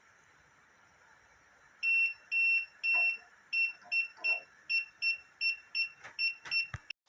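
Kiprim gas leak detector's alarm beeping at a single high pitch, sounding on combustible gas. It starts with three longer beeps, then a quicker run of short beeps, with a few sharp clicks near the end before it cuts off.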